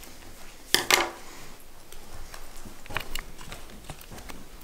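Scissors snipping plastic glue packets open: two sharp snips close together about a second in, then a few fainter clicks around three seconds in.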